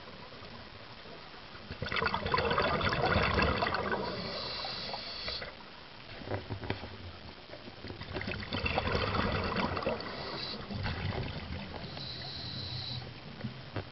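Scuba diver breathing underwater through a regulator: two long bursts of bubbling exhaled air about six seconds apart, each followed by a thin high hiss.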